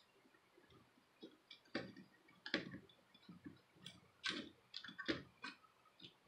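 Light, irregular clicks and taps of a laptop hard drive and its foil sleeve being handled and fitted by hand into the opened chassis of a Dell Inspiron 11 3000.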